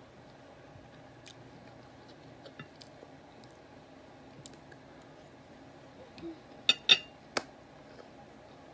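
Faint eating sounds with small scattered clicks, then a fork or spoon knocking sharply against a plate three times in quick succession about seven seconds in.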